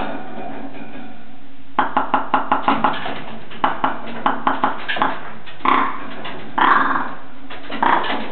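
Male Svalbard rock ptarmigan calling: a fast run of dry clicking notes about two seconds in, then slower notes, then three longer rasping croaks.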